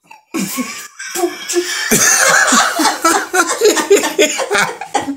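People laughing heartily in a small room, breaking out suddenly just after the start and going on in a loud, uneven run of laughs.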